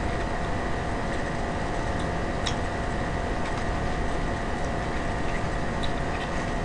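Electric fan running with a steady hum and hiss, with a few faint clicks of hands handling fried chicken and its packaging.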